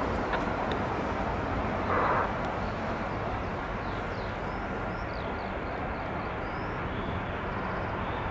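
Steady distant rumble of airport and road traffic, with jet engines running somewhere across the airfield. There is a brief louder rush about two seconds in, and faint small-bird chirps later on.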